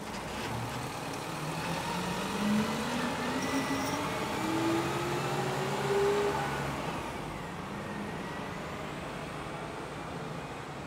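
Flatbed tow truck's engine pulling away and accelerating, its pitch rising steadily for about six seconds before it fades as the truck drives off.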